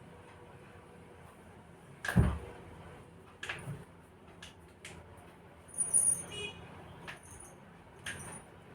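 Handling noises during a chiropractic treatment: one dull thump about two seconds in, then a few light clicks and knocks, with a brief squeak near six seconds.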